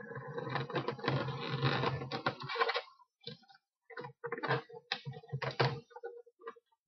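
Latex twisting balloons rubbing and squeaking against each other as they are twisted and fitted together. The rubbing is dense for about the first three seconds, then comes as separate short squeaks and rubs.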